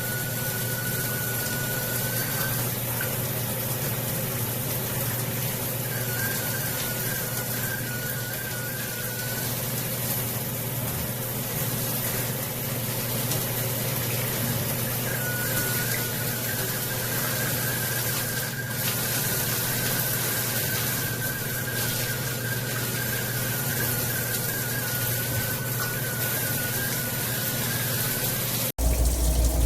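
Water spraying from a high-flow brass shower head at full pressure: a steady, even hiss with a high wavering tone coming and going over it. Near the end it cuts off suddenly to a louder low hum.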